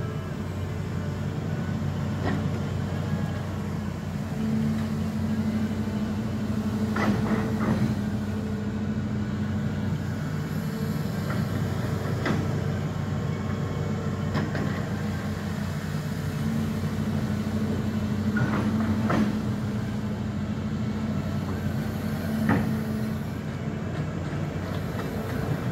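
Diesel engine of a Hitachi amphibious long-reach excavator running steadily, working harder during two long stretches as the hydraulics are loaded. Short knocks come every few seconds.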